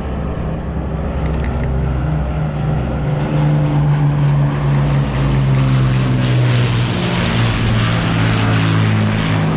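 Second World War propeller warplanes flying over, their piston engines droning with a steady, slightly shifting pitch, growing louder after about three seconds.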